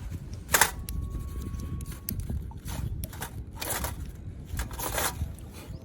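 Ferrocerium fire-starter rod being struck with a scraper, four separate rasping strokes throwing sparks onto tinder to light a campfire.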